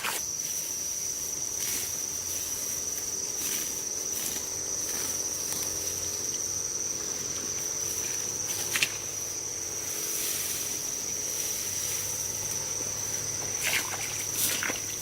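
Insects chirring in one steady, unbroken high-pitched drone, with a few sharp clicks or snaps, the loudest about nine seconds in and a couple more near the end.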